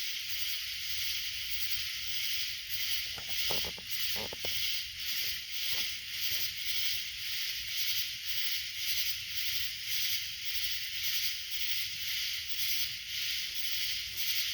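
A chorus of night insects chirping in a steady, even pulse of about two beats a second.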